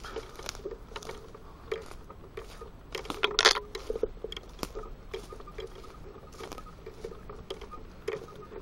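Footsteps through dry leaf litter in woodland: irregular crackling and rustling of leaves and twigs underfoot, with a louder crunch about three and a half seconds in.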